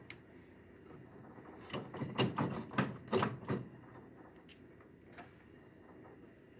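A quick run of about eight light knocks and clacks about two seconds in, over faint room noise.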